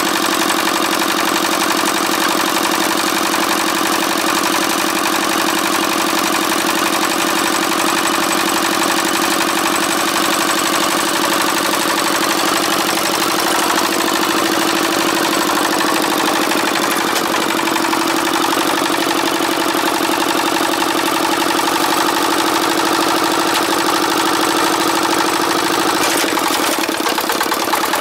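Single-cylinder horizontal diesel engine of a two-wheel walking tractor running steadily at low speed; its note changes in the last couple of seconds.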